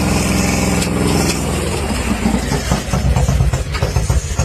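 Motorcycle engine running steadily, then from about two seconds in turning choppy and uneven.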